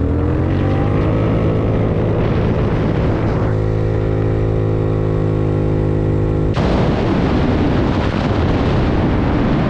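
50cc GY6 scooter's single-cylinder four-stroke engine at full throttle on a top-speed run, its pitch rising in the first seconds and then holding steady near top speed. About two-thirds of the way in, heavy wind buffeting on the microphone swamps it.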